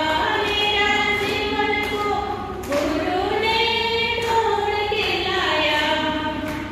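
A woman singing unaccompanied into a handheld microphone, in long held notes that slide slowly in pitch.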